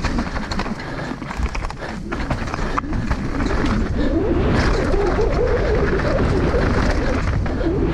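Downhill mountain bike ridden fast down a dirt track: a steady rush of wind over the microphone, with scattered knocks and rattles from the bike over rough ground.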